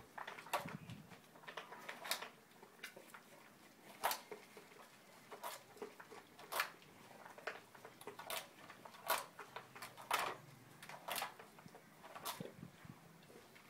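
Plastic dog food puzzle clicking and knocking as a dog noses its lids and cups to get at the kibble: irregular sharp clicks, a few louder ones roughly a second apart.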